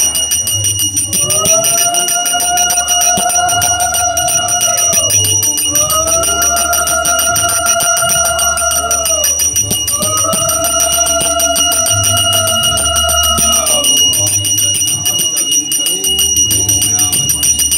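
A hand bell rung continuously in rapid strokes, with three long held blasts of a conch shell, each about four seconds, as at the high point of a puja.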